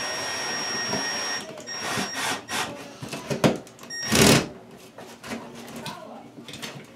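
Cordless drill driving screws into a plastic ceiling electrical box to mount it: the motor whines steadily for about a second and a half, then runs again in short bursts about two and four seconds in.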